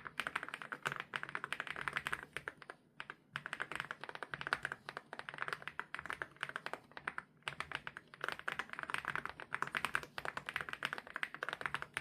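Fast, continuous typing on an MCHOSE K99 mechanical keyboard with MOA-profile keycaps, a creamy run of key clicks with two brief pauses.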